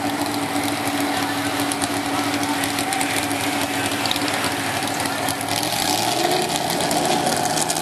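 The 521-cubic-inch big-block V8 of a 1967 Ford F-350 pulling truck idling at the start line, hooked to the sled. The engine holds a steady note, which starts to waver about six seconds in.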